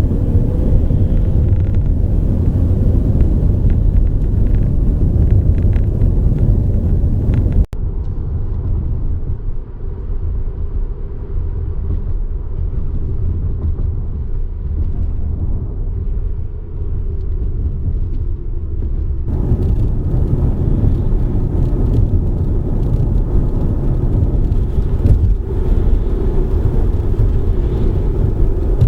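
Subaru Forester driving, a steady low rumble of engine and road noise. There is a brief break about eight seconds in, and the sound is duller from there until about nineteen seconds.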